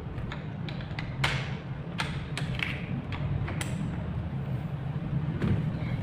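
Adjustable wrenches clicking and tapping against a brass flare nut on an air conditioner's copper refrigerant line as they are set to loosen the joint, so the suspect flare on a leaking connection can be checked. There are a handful of sharp clicks, the loudest about a second in, over a steady low hum.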